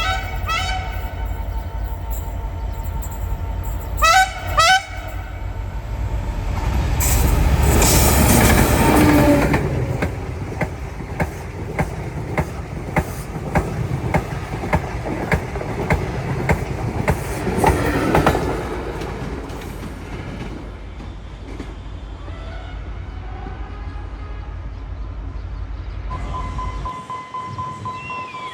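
A train passing: short horn blasts, two of them close together about four seconds in, then a loud rush as it goes by, with the wheels clicking over rail joints at a steady beat before it fades away.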